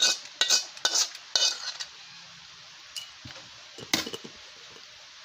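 Spoon clinking against a glass jar and a bowl as chili oil is spooned onto noodles: four sharp clinks in the first second and a half, then a few softer ones about three and four seconds in.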